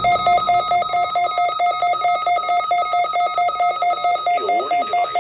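NOAA weather radio alert tone during the required weekly test: one steady mid-pitched electronic beep repeating rapidly, about four beeps a second.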